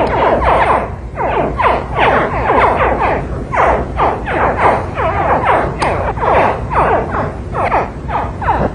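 Baby crocodiles calling in a group: quick, overlapping chirps, each sliding down in pitch like a laser-gun zap, two or three a second, over a low steady hum.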